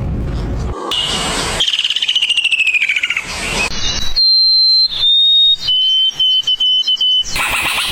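Bird calls: a fast trill falling in pitch, then several long, pure whistled notes, each held steady and a little lower than the one before.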